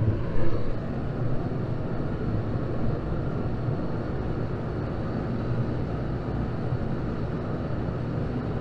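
Mr. Heater MH70KTFR kerosene radiant heater running with a steady, even hum, about as quiet as a box fan. A couple of brief bumps in the first half-second.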